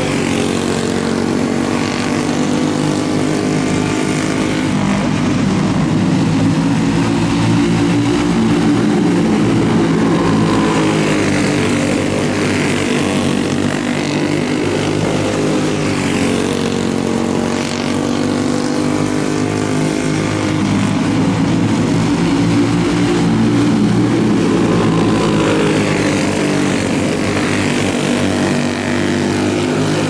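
Several clone-class racing karts' small single-cylinder four-stroke engines running together in a race, their pitch rising and falling over and over as they lap.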